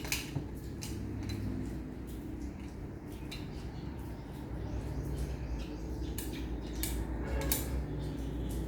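Scattered light clicks and knocks of feeding-bottle parts being handled and put together, over a steady low hum.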